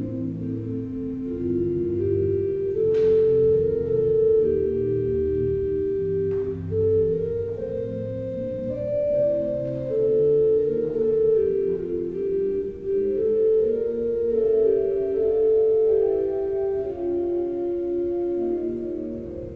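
Church organ playing slow, sustained chords over a moving bass line, the chords changing every second or so.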